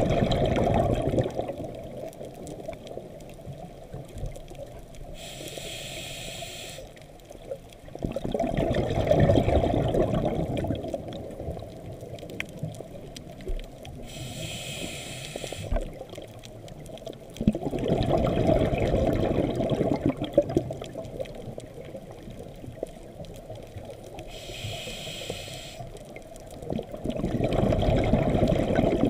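Scuba diver breathing through a regulator underwater: a short hiss of inhaling, then a louder rush of exhaled bubbles lasting two or three seconds, three breaths about nine seconds apart.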